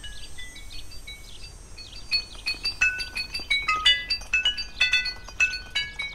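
High glassy clinks and chime-like pings in a rapid, irregular run, several a second, densest about halfway through.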